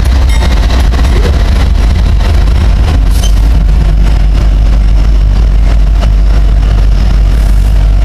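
Illinois Central diesel-electric locomotives passing close by under load, pulling a freight train: a loud, steady, deep engine rumble with faint clicks from the running gear.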